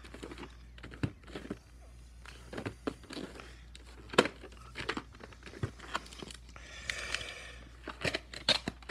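Hard plastic VHS clamshell cases being handled: scattered clicks and knocks as cases are flipped, opened and set down, with a short rustling scrape about seven seconds in.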